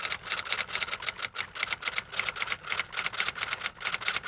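Typewriter-style typing sound effect: a rapid, even run of key clicks, about eight a second, laid under on-screen text typing out letter by letter.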